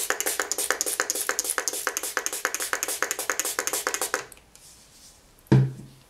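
Spray bottle of alcohol misting onto the clay sheet: a rapid stuttering hiss of about nine pulses a second that stops suddenly about four seconds in. A single sharp knock follows near the end.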